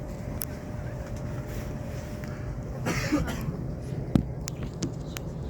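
Steady low hum inside a stopped Saikyo Line commuter train, held for an emergency safety check at a level crossing. A short rustling or breathy burst comes about three seconds in, then a knock and a few light clicks near the end.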